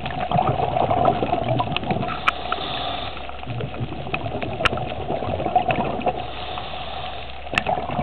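Muffled underwater water noise, heard through a submerged camera: a steady rushing hum with many scattered sharp clicks and crackles.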